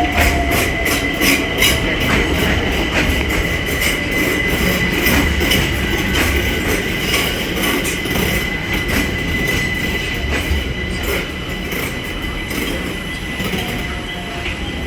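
London Overground Class 378 electric multiple unit pulling into the platform: wheels clicking over rail joints, quickly at first and thinning out, with a steady high wheel squeal and an electric motor whine that falls in pitch as it slows. Near the end a whine rises again.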